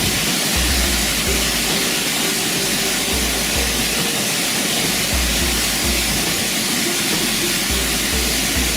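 Waterfall rushing, a steady loud hiss, with music playing underneath whose deep bass notes come and go.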